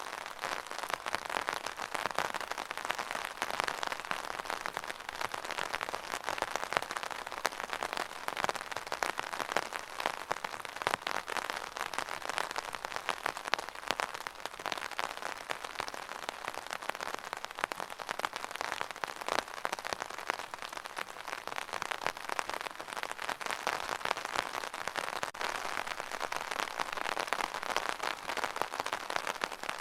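Steady rain falling, with a dense patter of individual drops striking a surface.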